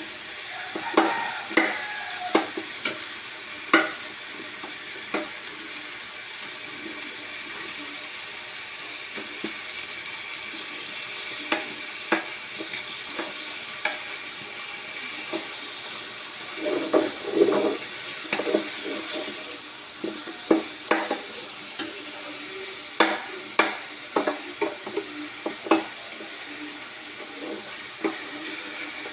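Pork leg pieces frying in oil with a steady sizzle, mixed with scattered clicks and knocks of a utensil against the pan as they are stirred, busiest about two-thirds of the way through.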